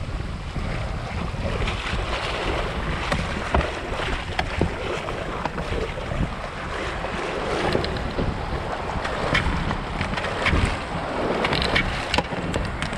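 Shallow surf washing and water sloshing around a small skiff being pushed out through the waves, with wind buffeting the microphone and many short splashes and knocks throughout.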